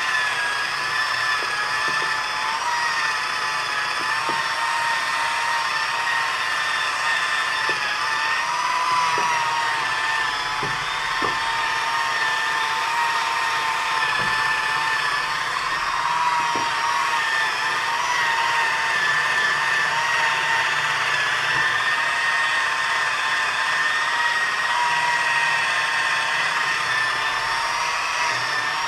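Electric polisher with a bonnet pad running steadily while buffing polish into sanded paint; its motor whine wavers slightly in pitch as the pad is worked over the surface.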